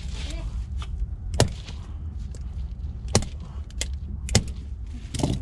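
Five sharp, brief knocks at irregular intervals over a low, steady rumble.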